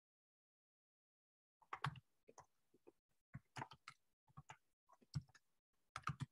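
Typing on a computer keyboard: faint, irregular key clicks, starting about a second and a half in.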